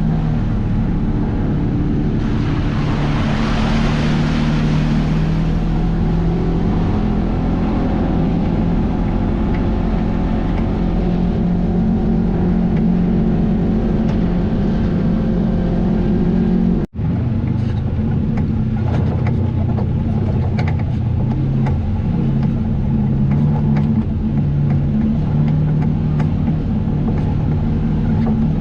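A vehicle engine runs steadily while driving at an even pace, with a rush of wind noise about three seconds in. The sound drops out for an instant about 17 seconds in.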